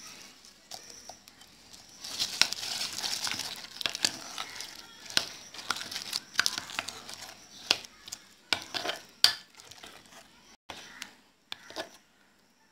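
Metal spoon stirring diced apple into thick cake batter in a bowl: a wet, squelchy churning with frequent sharp clicks of the spoon against the bowl, thinning out near the end.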